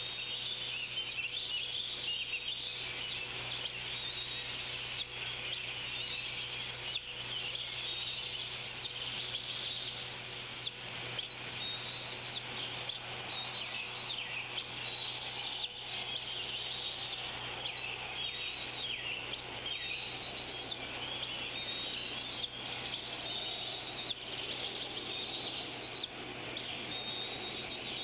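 A bird repeating a short, high whistled call about once every second and a quarter, each note sliding up and then falling off, over a steady low hum and hiss.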